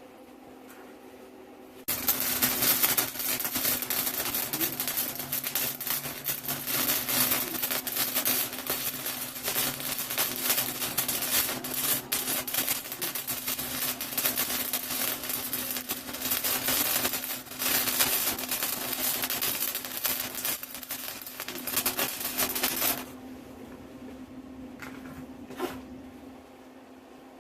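Wire-feed (MIG) welder laying a bead, a dense steady crackle that starts abruptly a couple of seconds in and cuts off about twenty seconds later. A steady low hum runs underneath.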